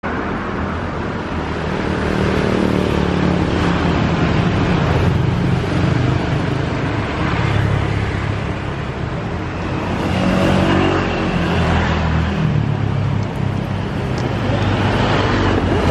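Road traffic: motor vehicle engines running steadily, with a low engine drone and a constant wash of noise.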